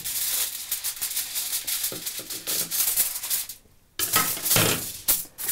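Aluminium foil crinkling and rustling as sheets are cut with large kitchen scissors and handled, with a short pause about three and a half seconds in.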